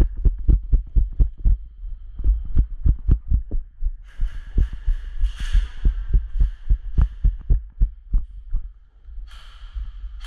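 Footsteps thudding close to a body-worn camera, about three to four a second and then slower and more spread out, thinning near the end.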